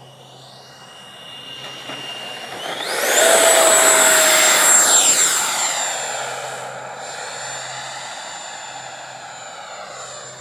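FMS F-16 radio-control jet's 80mm electric ducted fan whining. About three seconds in the throttle goes up sharply and the whine jumps higher and louder as the jet passes close, then it holds a steady high whine that fades slowly as the jet draws away.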